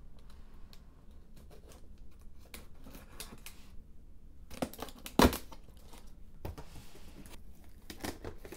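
A utility blade slitting and peeling the clear tape seals on a cardboard carton: scratchy cuts, crinkling tape, and a sharp crack about five seconds in, followed by a few cardboard clicks as the box is opened.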